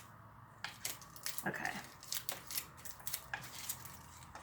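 Crumpled aluminium foil and clear tape being handled while a foil wing is taped on: irregular small crackles and clicks.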